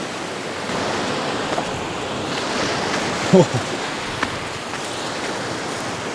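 Surf washing against a rock jetty, a steady rush of waves. A short voice sound about three seconds in is the loudest moment, and a single sharp click follows about a second later.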